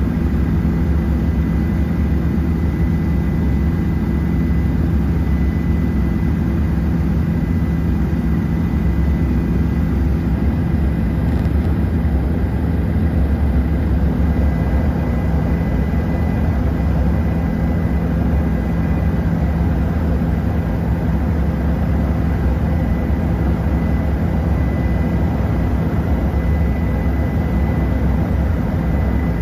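Helicopter in flight: a steady, loud drone of rotor and turbine engine, with a thin constant whine over it.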